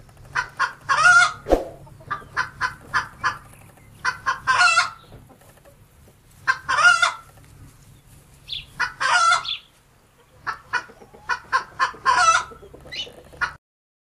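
Chickens clucking in runs of short sharp notes, broken about every two to three seconds by a louder drawn-out call. The sound cuts off abruptly near the end.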